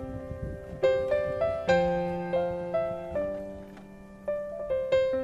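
Background piano music: a slow melody of single struck notes that ring and fade away.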